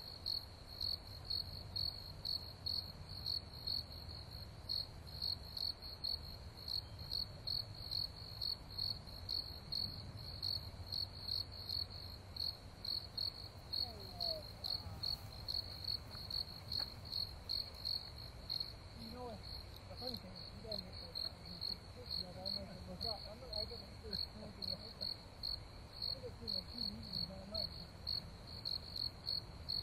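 Crickets chirping in a steady, even rhythm, a single high pitch repeating without pause through the night air.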